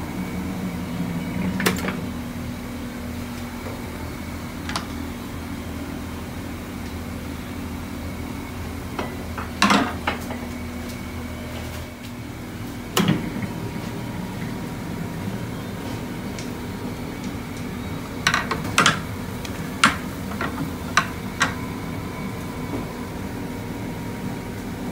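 Steady mechanical hum with a few sharp knocks and clatters, single ones at first and then a quick cluster of them about three-quarters of the way through.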